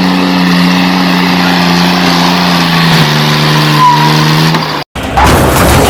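Vehicle engine running at a steady pitch, dropping slightly about three seconds in and cutting off abruptly near the end, followed by a loud noisy clatter.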